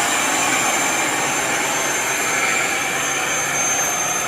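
Heavy diesel machinery running steadily: a loud, even roar with a thin high whine running through it.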